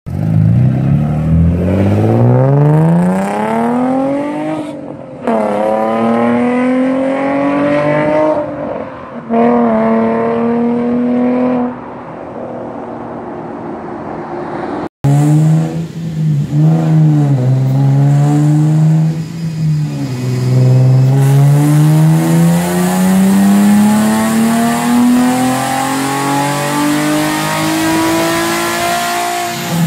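Nissan 350Z's 3.5-litre V6 through a titanium single-exit exhaust, accelerating hard with the pitch climbing and dropping through two upshifts, then fading as the car drives off. After a cut about halfway through, the same engine revs on a chassis dyno, then makes a long full-throttle pull that rises steadily in pitch for about nine seconds before the revs drop near the end.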